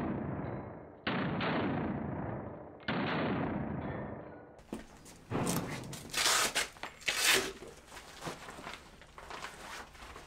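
Two handgun shots fired into body armour, about 1 and 3 seconds in, each ringing out in the small room. Then rustling and a few loud rips as the vest's hook-and-loop straps are pulled open to take it off the dummy.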